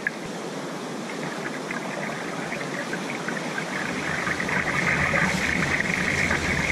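Ocean surf rushing and washing over the beach, a steady roar of breaking waves and foam that grows louder and deeper about four seconds in.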